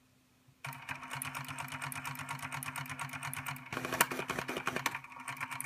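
A Sega SP-400 four-colour pen plotter, built on the ALPS plotter mechanism, starts its self-test printout about half a second in. Its stepper motors drive the pens and paper with a steady buzz and dense rapid clicking, with a few sharper clicks partway through.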